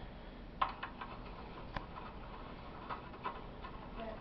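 Faint, irregular small metallic clicks and ticks as a screwdriver works the screw on a CRT's wire retaining strap, over a low steady hum.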